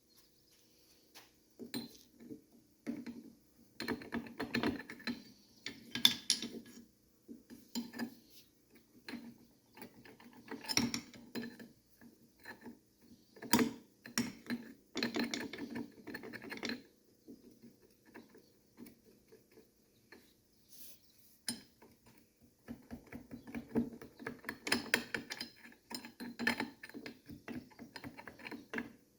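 Hand tools working on a two-stroke engine's metal parts during disassembly: irregular bursts of metallic clicking, rattling and clinking, with quieter pauses between them.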